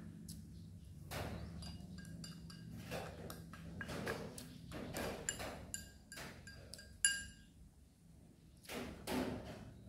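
Chopsticks clinking against a porcelain rice bowl during a meal: a series of light, ringing clinks, the sharpest one about seven seconds in, with chewing sounds between them.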